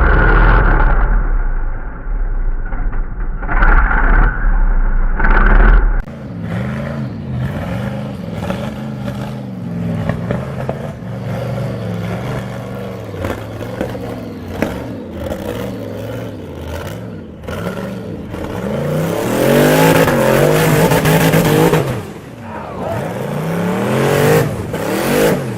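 Rock bouncer buggy engine revving hard, the pitch climbing and dropping again and again as it works up the course, with a louder, harder-revving stretch about three-quarters of the way through. The first few seconds are muffled, with a heavy low rumble.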